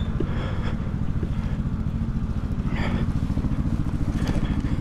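A KTM adventure motorcycle's engine idling steadily with an even low pulse. A short hiss comes through about three seconds in.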